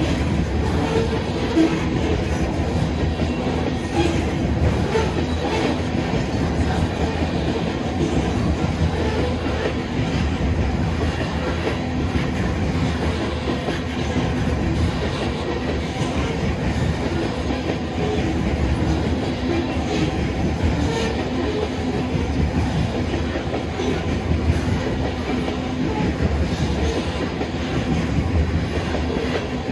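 Covered hopper cars of a freight train rolling past: a steady noise of steel wheels on rail, with the clickety-clack of wheels running over rail joints.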